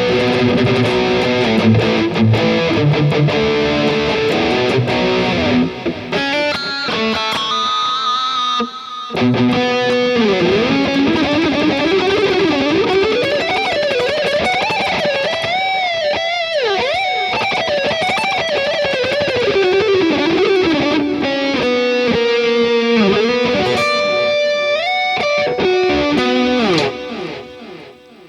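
Distorted high-gain electric guitar played through a Mooer Prime S1 modelling unit on a JCM 900 amp-model preset, with a modulating delay. A rhythmic low riff gives way to a single-note lead with bends and wide vibrato, and the guitar dies away near the end.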